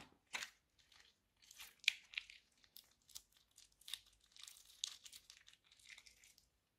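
Plastic bag crinkling and sticky slime squelching as a bag of pink slime is squeezed out over foam beads: soft, irregular crackles that stop shortly before the end.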